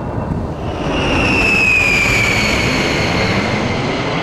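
Military jet passing close, its engine noise swelling about a second in, with a high whine that slides down in pitch as it goes by.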